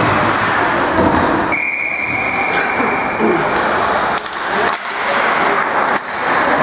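Ice hockey play: skates scraping and carving on the ice in a steady rush of noise, with a steady whistle tone about a second and a half in that holds for about a second and a half.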